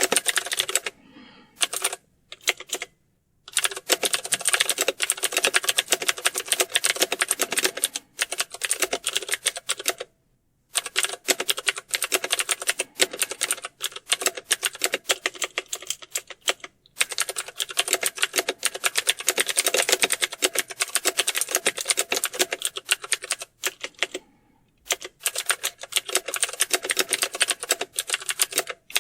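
Fast typing on a computer keyboard: a dense run of rapid key clicks, broken by a few short pauses, the longest about a second in.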